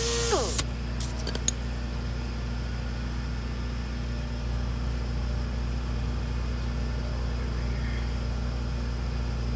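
A power sander winds down with a falling whine and stops just after the start, two light clicks follow, then a steady low hum fills the rest.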